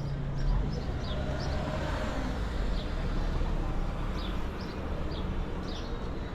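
Outdoor street ambience: a steady low rumble like passing traffic, with repeated short, high chirps over it.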